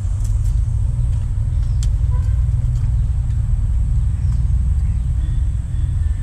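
Steady low rumble of wind buffeting the microphone, with a few faint clicks in the first couple of seconds.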